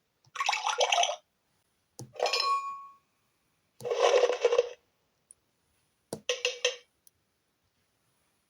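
Electronic talking book's small speaker playing short mealtime sound effects, clinking dishes and glass, four in turn about two seconds apart, as pictures on the page are touched.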